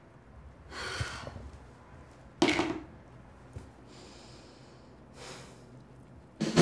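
A woman breathing out in short, audible huffs and sighs, the loudest about two and a half seconds in. Music with guitar and drums comes in at the very end.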